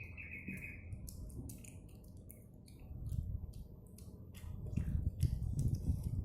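A child eating pentol meatballs close to the microphone: wet chewing and mouth clicks, with soft low bumps that get louder about five seconds in. A brief high tone sounds at the very start.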